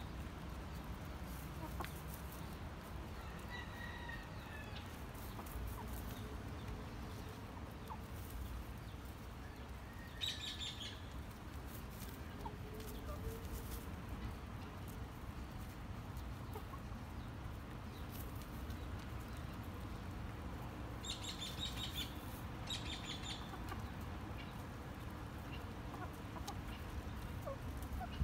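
Sumatra chickens clucking quietly while they forage, with a few short bursts of rapid high calls, one about ten seconds in and two more a little past twenty seconds. A steady low rumble runs underneath.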